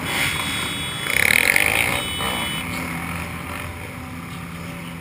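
Motorcycles idling and revving at close range in a slow-moving group. A loud, high-pitched blast comes about a second in and lasts under a second, followed by a steady engine note.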